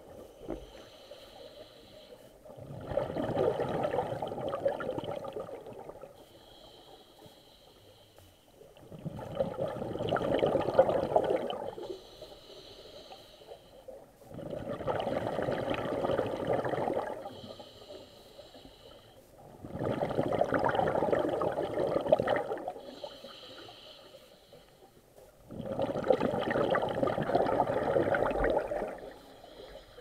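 A diver breathing through a scuba regulator underwater: five long bubbling exhalations, about one every five and a half seconds, each followed by a shorter, quieter hissing inhalation.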